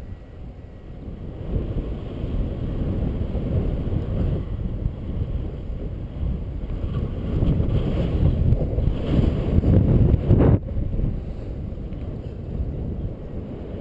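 Wind buffeting the camera microphone as the paraglider flies, a low rumbling rush that swells and fades in gusts and drops abruptly a little past ten seconds in.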